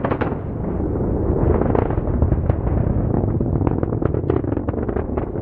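SpaceX Falcon 9 rocket engines during ascent, heard from the ground: a loud, continuous deep rumble full of sharp crackles.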